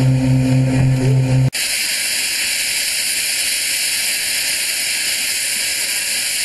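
A steady low hum for about a second and a half, then a sudden cut to the standing steam locomotive 35028 Clan Line, a rebuilt Southern Railway Merchant Navy class 4-6-2, hissing steam in a steady, even hiss.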